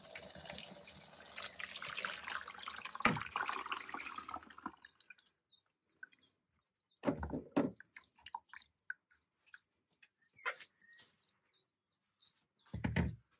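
Dye liquid poured steadily out of a glass jar for about four and a half seconds, then scattered drips and small clicks, with a couple of dull knocks as the jar is handled.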